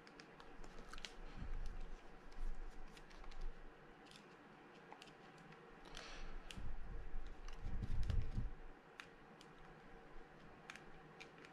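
Small precision screwdriver turning out tiny screws in a Shimano Sustain spinning reel: faint, scattered metallic clicks and ticks of the tip and screws, with soft low bumps as the reel is handled, twice.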